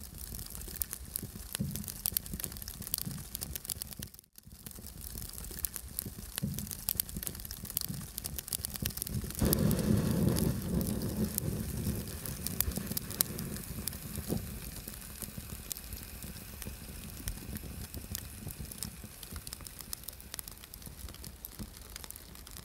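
Crackling fire sound effect: dense crackles and pops over a steady hiss, with a low rumble that swells about ten seconds in.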